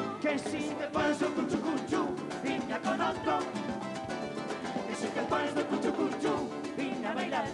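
Live rumba played on acoustic Spanish guitars, strummed in a steady rhythm with hand claps.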